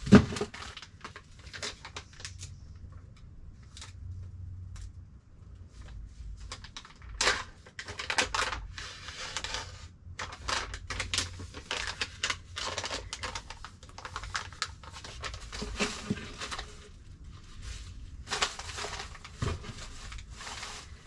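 Clicking and rustling of packages and small items being handled and sorted, in irregular clusters, with a sharp knock right at the start and a dull thud near the end.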